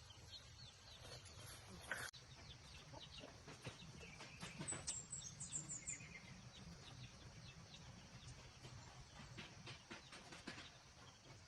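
Faint bird calls, with a few short high chirps and scattered small clicks and rustles, a little busier about four to six seconds in.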